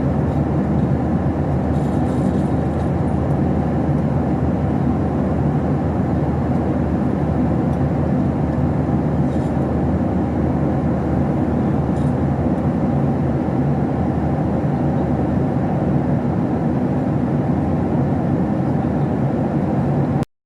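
Airplane engine running steadily, a loud even noise with no change in pitch, which cuts off abruptly near the end.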